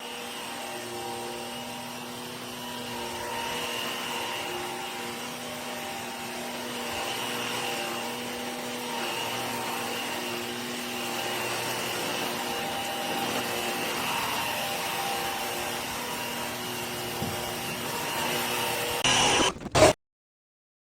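Eureka RapidClean Pro NEC280TL cordless stick vacuum running with a steady motor whine and airflow hiss. Near the end come a couple of loud knocks, then the sound cuts off suddenly.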